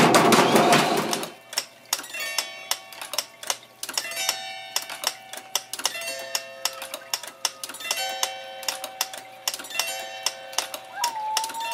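Zither strings plucked by a clear plastic strip swept round by a spinning record turntable: sharp clicks at irregular intervals, each leaving several notes ringing, with one note sliding upward near the end. For the first second or so a loud noisy rustle.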